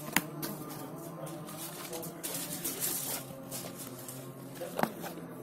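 Smartphone retail box and its paper inserts being handled: paper and card rustling, with a sharp snap just after the start and another near the end, over a steady low hum.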